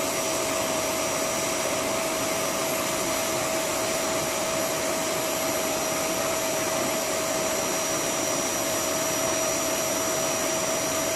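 Vacuum cleaner running steadily with a constant whine, sucking dust out of the cooling fins of a split-system air conditioner's indoor unit.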